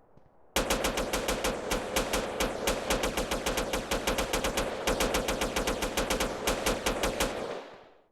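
A rapid, evenly repeated train of sharp bangs, many a second, that starts suddenly and fades out near the end.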